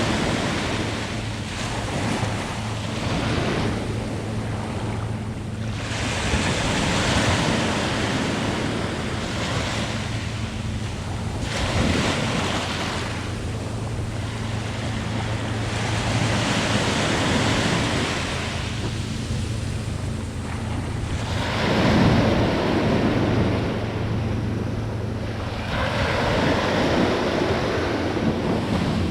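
Sea waves breaking on the shore, the wash of surf swelling and falling away every few seconds.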